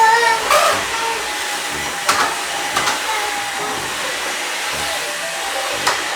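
Vacuum cleaner running with a steady whooshing hiss, a few light knocks sounding over it.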